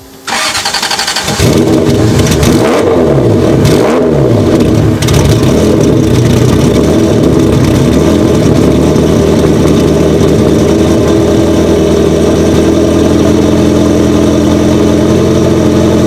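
Turbocharged Ferrari Mondial 3.2-litre V8 (Ferrari 328 engine) starting: a short burst of cranking, then it catches about a second in. It is blipped two or three times, the revs rising and falling, then settles into a steady idle.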